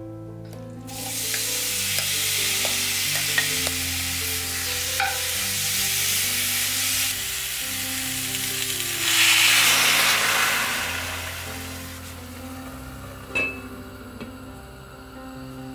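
Dried pumpkin slices (hobak-goji) frying and being stirred in a hot stainless steel pan, sizzling with small utensil clicks. About nine seconds in, anchovy stock hits the hot pan and the sizzle surges loudly, then dies down; a short metal clink follows as a lid goes on.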